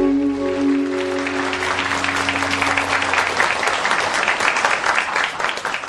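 A live band's final held chord rings out and fades over the first three seconds as audience applause builds, the dense clapping carrying on after the music has died away.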